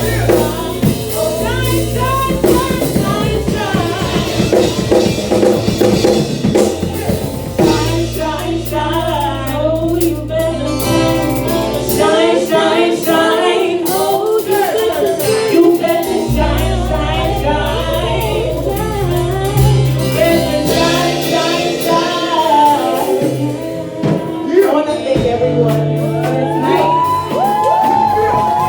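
Music: a song with singing over bass and drums, the bass dropping out for a few seconds in the middle.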